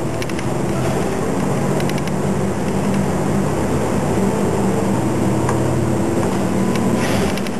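A city bus's diesel engine running steadily, heard from inside the cabin, with road noise as the bus turns and drives on. There are a few faint ticks in the first couple of seconds and a short burst of hiss near the end.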